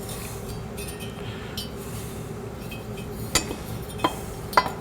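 Steel automatic-transmission parts (the sun gear shell and roller bearing going into the housing) handled and set in place, with light scraping and then three sharp metal-on-metal clinks in the second half.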